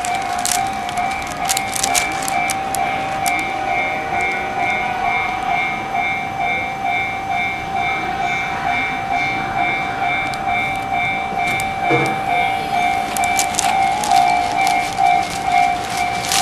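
Japanese railway level-crossing warning bell ringing continuously, two pulsing electronic tones repeating evenly, with occasional sharp clicks and knocks.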